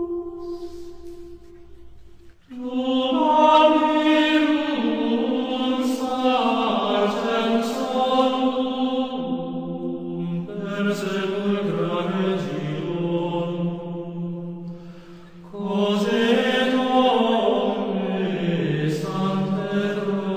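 Slow sung chant in long phrases of held notes. One note fades away at the start, a new phrase begins about two and a half seconds in, and another begins after a brief dip near the three-quarter mark.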